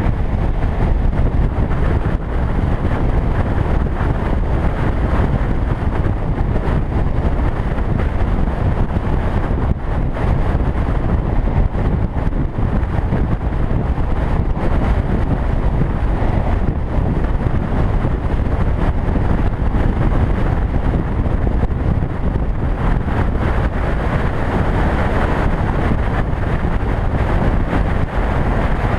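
Steady rush of wind buffeting a camera microphone on a motorcycle at highway speed, mixed with the motorcycle's engine and tyre noise on the road.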